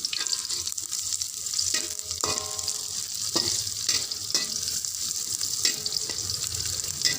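Sliced garlic, onion and chili sizzling in hot oil in a frying pan, with a spatula stirring and scraping, clinking against the pan several times.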